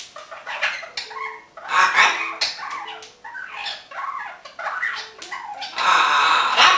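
Green-winged macaw squawking and chattering in a string of harsh calls, loudest about two seconds in and again near the end.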